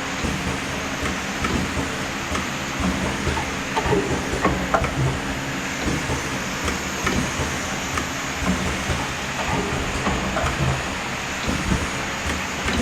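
Four-colour pad printing machine running, a steady mechanical noise with a low hum and irregular clacks and knocks.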